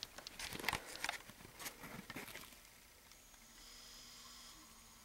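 Handling noise from a handheld camera as it swings round: scattered clicks and rustles for about two and a half seconds, then quiet room tone with a faint steady hum.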